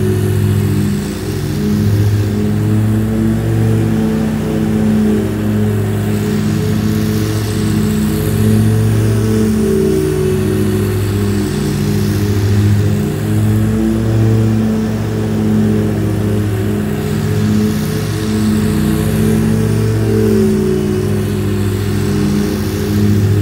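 Dixie Chopper zero-turn mower running as it mows, its engine note shifting up and down every second or two.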